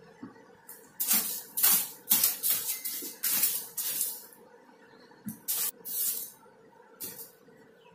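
Cloth rustling and swishing close to the microphone: a quick, irregular run of short hissy swishes with a few soft knocks, thickest in the first half, then a few more swishes a second or two later.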